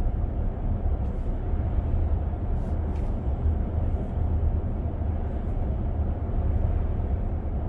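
Steady low road and drivetrain rumble heard inside the cabin of a 2025 Ram 1500 pickup while it is driven, with a few faint clicks about a second and three seconds in.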